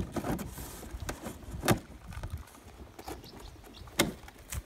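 A large cardboard box sealed with packing tape being pulled open by hand: irregular sharp knocks and crackles of the cardboard, a few louder ones, with scuffing and rustling between.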